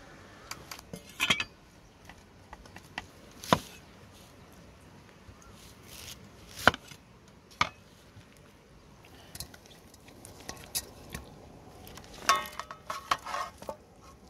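Irregular knocks, taps and clatters of hands-on food preparation: pineapple pieces and dishes handled and set down on a wooden chopping board. A quick run of clatters comes near the end.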